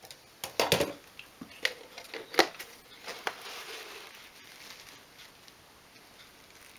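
Handling noises from the disassembled Karcher K2 pressure washer motor and pump unit being moved and stood upright in a clear plastic pot: a few sharp knocks and clicks of plastic and metal parts over the first few seconds, the loudest a little past two seconds in, then only quiet room tone.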